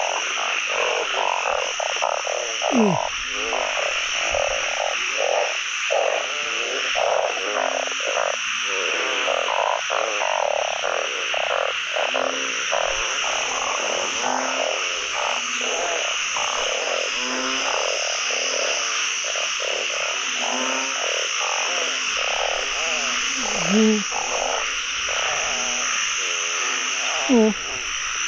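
Dense chorus of many narrow-mouthed frogs (oung) calling at once, overlapping croaks with a steady high drone above them. A few louder calls that slide down in pitch stand out about three seconds in and twice near the end.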